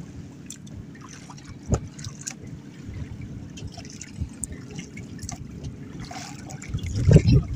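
Sea water lapping and sloshing against the hull of a wooden outrigger boat, with scattered small knocks and splashes; briefly louder near the end.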